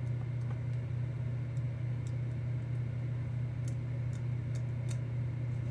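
Faint, scattered clicks, about half a dozen, as a 9-volt battery is touched across the pins of a Philco 71 cathedral radio's electrodynamic speaker plug. The speaker clicks at each contact, which suggests its voice coil still conducts. A steady low hum sits under the clicks.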